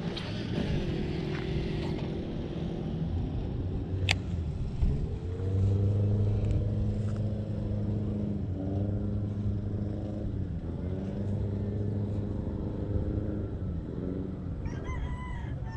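A motor vehicle engine running steadily, its pitch rising about five seconds in and then dipping and recovering twice. A single sharp click about four seconds in.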